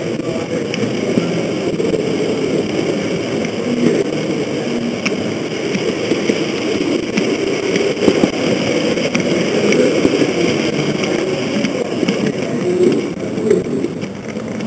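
H0-scale model train running along the track, heard from a camera riding on it: a steady motor-and-gear hum with rolling wheel rumble, broken by a few sharp clicks as the wheels cross rail joints and points.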